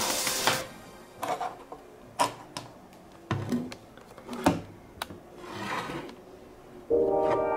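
Hard plastic toy pieces being handled: a scattered run of separate clicks, taps and clacks with short pauses between them.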